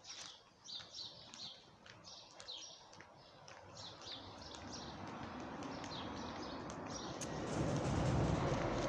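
Small birds chirping in quick, repeated high calls through the first half. Then a rumbling noise rises steadily and is loudest near the end.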